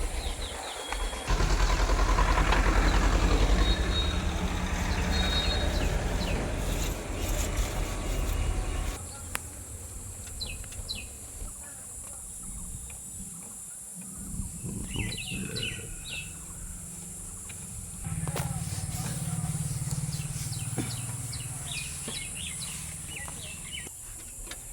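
Diesel engine of a farm machine running: loud for the first several seconds, dropping away abruptly about nine seconds in, with a lower engine hum returning later. Short high chirps are scattered throughout.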